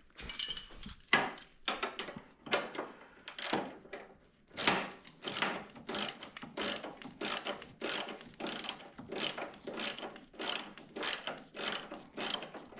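Hand ratchet wrench being worked on steering fasteners, its pawl clicking in a steady back-and-forth rhythm of about one and a half to two strokes a second.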